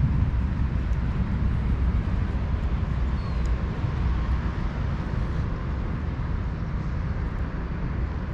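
Steady low outdoor rumble.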